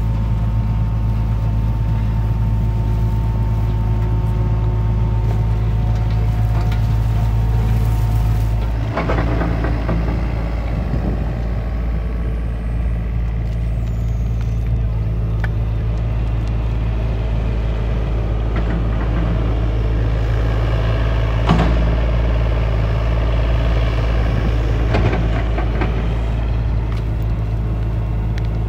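Takeuchi TB325R mini excavator's diesel engine running steadily while it digs, with the hydraulics working the arm and bucket. A few short knocks come through, about a third of the way in and twice more near the end.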